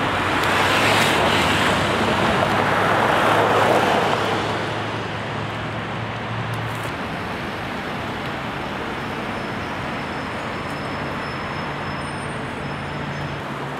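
Road traffic going by: one vehicle passes close and is loudest over the first four seconds, then the sound settles into a steady wash of traffic noise.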